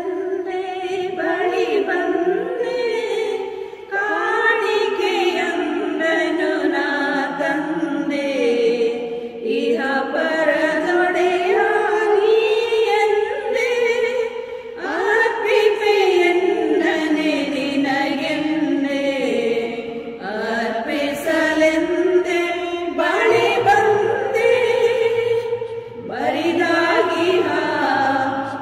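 Women's choir singing the offertory hymn in sung phrases of about five to six seconds, with short breaks between them; a low held note comes in about 23 seconds in.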